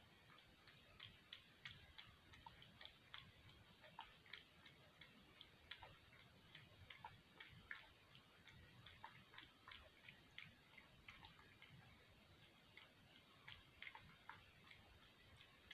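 A cat lapping milk: faint, quick wet clicks of the tongue, roughly three or four a second, unevenly spaced.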